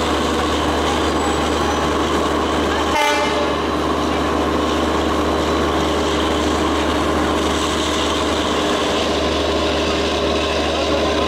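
EMD WDP4 diesel-electric locomotive, a 16-cylinder two-stroke 710 engine, running steadily as it draws slowly up to couple onto a train. About three seconds in comes a brief horn toot.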